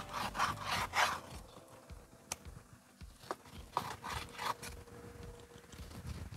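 Knife sawing through raw pork on a wooden cutting board, in short runs of strokes with a few sharp taps of the blade on the board in between.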